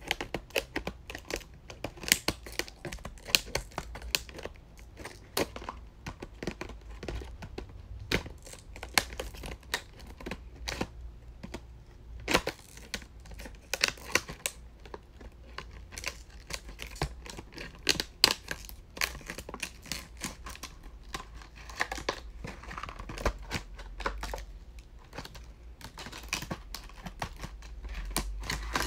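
Packaging being crinkled and torn open by hand, with a dense, irregular run of sharp clicks and crackles.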